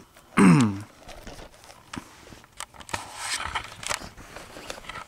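Handling of a plastic-wrapped Blu-ray steelbook case: light clicks, small knocks and crinkly rustling of the plastic as it is turned in the hand. About half a second in there is a short, loud sound that falls in pitch.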